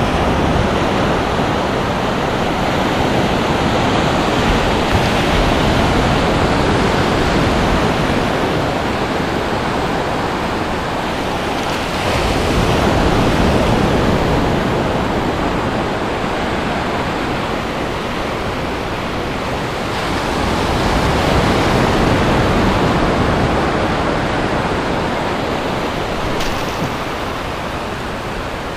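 Ocean surf breaking and washing up the shallow beach, a steady rush that swells louder about every eight seconds as each set of waves comes in.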